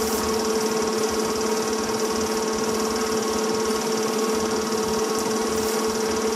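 Film projector running steadily: a constant mechanical whir with a steady hum.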